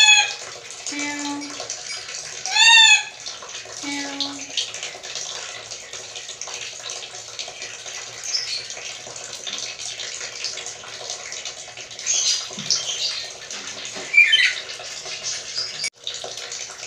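Black-capped lory giving cat-like mewing calls: two loud rising-and-falling mews about three seconds apart near the start, then softer, shorter calls, over a steady background hiss.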